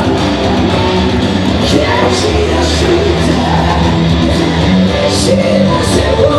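Live rock band playing hard and loud: distorted electric guitar and drums with a vocalist singing over them.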